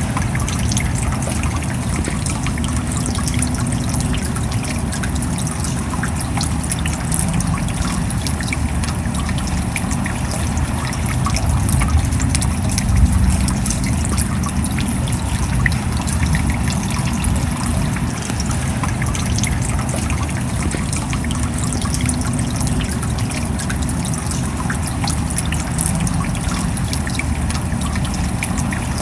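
Steady rain: a dense patter of individual drops over a continuous deep wash of water noise.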